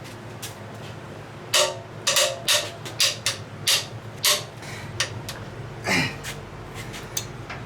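A quick run of sharp metal clanks and knocks, about nine in three seconds, a few of them ringing briefly, from tools and engine parts being handled. A single longer scrape follows near the end.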